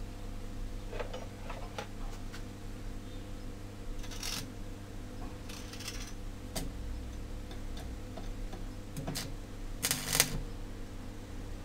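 Electric arc welder struck on steel rods about ten seconds in: a short, loud crackling burst of the arc. Before it there are scattered clicks and a couple of brief scratchy noises over a steady low hum.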